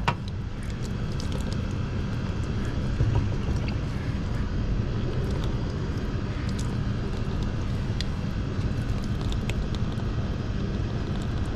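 Steady low mechanical drone, with a few faint ticks over it.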